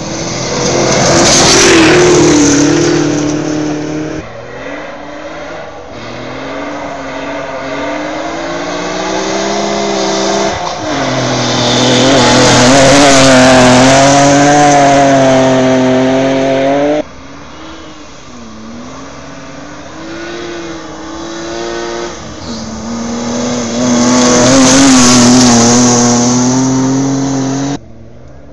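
Rally cars passing one at a time at speed on a gravel stage, their engines at high revs with the pitch rising and falling between gear changes. There are three passes, each swelling to loud and then cutting off suddenly.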